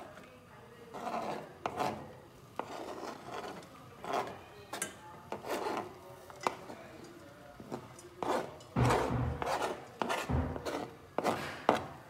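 Knife blade scraping chopped milk chocolate off a plastic cutting board into a saucepan, in a series of irregular scraping strokes, the heaviest with dull knocks about two-thirds of the way through.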